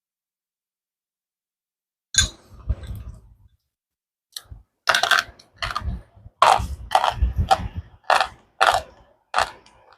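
Slate pencil being bitten with a sharp snap about two seconds in, then chewed with a run of loud, crunchy chews a little under two a second.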